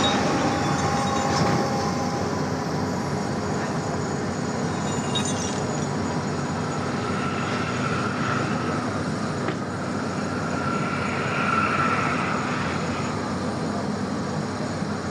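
Steady noise of heavy vehicle engines running, with a faint whine that comes and goes twice in the second half.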